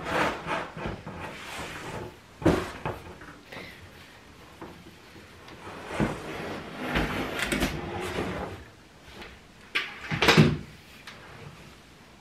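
Wooden slatted room divider being handled in and out of its cardboard shipping box and stood upright: wood knocking and scraping against cardboard, with several sharp knocks and the loudest thump near the end.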